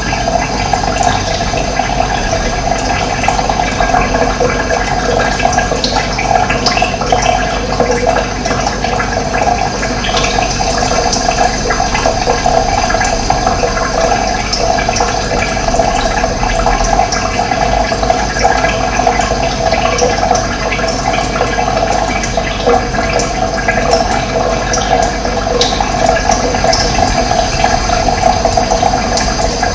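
Running water: a steady, loud rush of flowing water that does not let up.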